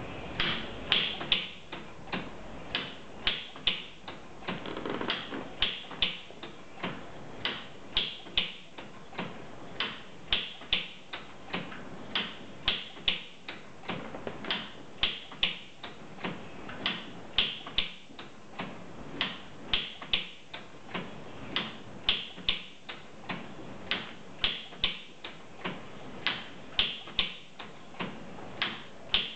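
Mechanism of a kinetic hanging-light sculpture clicking sharply and repeatedly, about two clicks a second in uneven pairs and threes, as its arm and lamp cords move.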